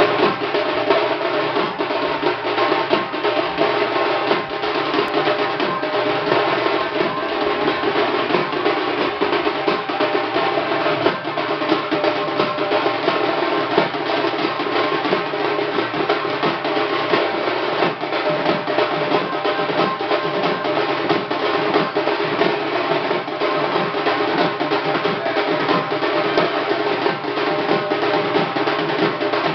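Dhak drums played in fast, unbroken rolls for dancing, over a steady sustained ringing tone.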